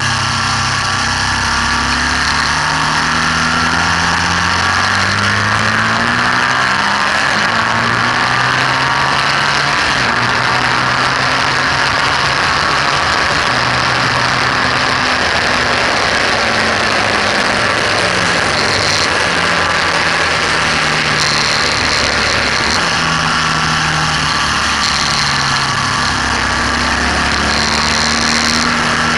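BMW R1200S flat-twin boxer engine being ridden hard on a racetrack, its pitch repeatedly climbing and then dropping as it goes up and down through the revs. Heavy wind rush on the bike-mounted camera's microphone runs under it throughout.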